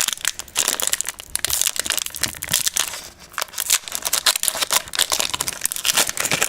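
Foil trading-card booster pack wrappers being torn open and crumpled by hand, a dense crinkling and crackling with a brief lull about three seconds in.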